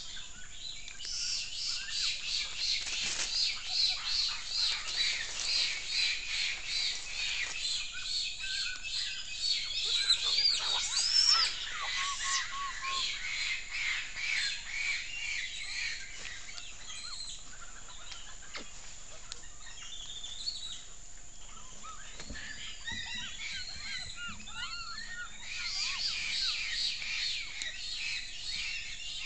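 Forest animal calls: a fast series of high chirps, with a few louder arched, whistled calls about ten to eleven seconds in and scattered lower chirps near the end.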